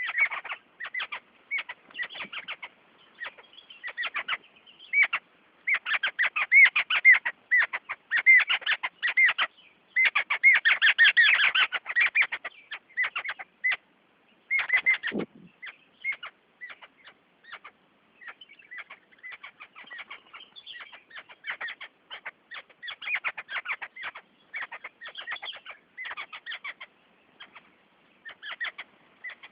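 A flock of small birds chirping in rapid, overlapping short high calls, busiest and loudest in the first half and thinning out later. One call drops sharply in pitch about halfway through.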